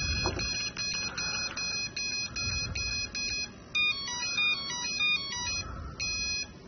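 Brushless motor of an FTC Hunter 680 flying wing sounding its ESC's tones as the throttle is pulled to low during throttle-range calibration: a run of short high beeps, about three a second, then a quick series of stepped notes at changing pitch. This is the ESC's calibration-complete tone.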